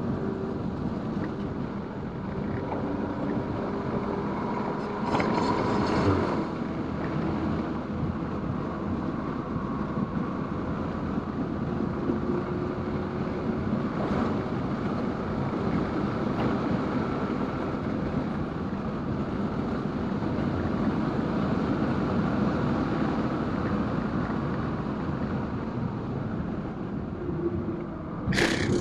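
Stage 2-tuned 2019 VW Golf R turbocharged four-cylinder driven hard on a race track, its engine note faint under heavy road and wind noise, with the pitch sliding up and down. A louder rush of noise comes about five seconds in, and a brief sharp burst near the end.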